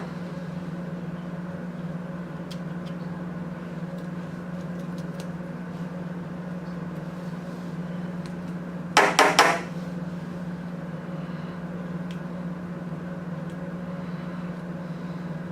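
A quick run of three or four sharp, ringing taps about nine seconds in, knocking a leftover laser-cut centre out of a hole in a limit switch mounting plate. A steady low hum runs underneath, with a few faint clicks of handling.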